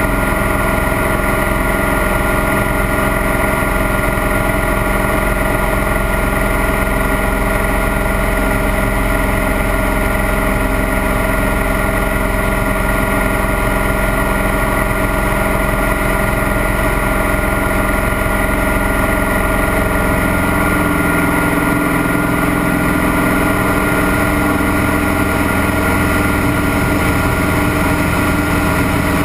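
Scottish Aviation Bulldog's four-cylinder Lycoming piston engine and propeller droning steadily, heard inside the cockpit. About two-thirds of the way through, the engine note shifts as power or attitude changes.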